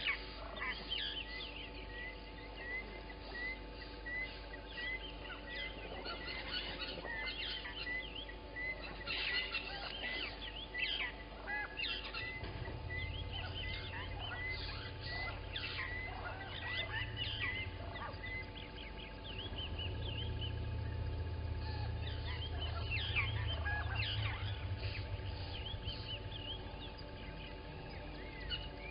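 Many wild birds calling over one another, one of them repeating a short note about twice a second for much of the time. A low steady hum comes in twice in the second half.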